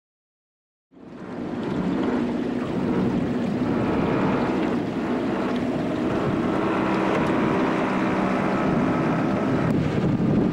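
Outboard motor of a small aluminium boat running steadily underway, with wind noise on the microphone. The sound cuts in abruptly about a second in, after a moment of silence.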